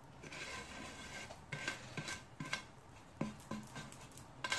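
Hand sweeping and levelling damp couscous grains across a wide metal dish: a soft gritty rustle, then a series of light taps and clinks against the metal.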